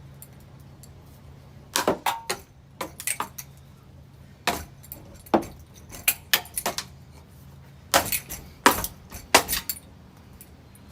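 Hampton Bay ceiling fan clattering: sharp metallic knocks and clanks in irregular clusters, about a dozen over several seconds. A low hum fades about two seconds in, as the knocking begins.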